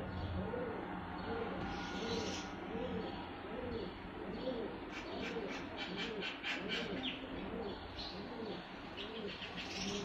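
Caged pigeons cooing: a low call that rises and falls, repeating about twice a second. A quick run of short, high chirps comes about five to seven seconds in.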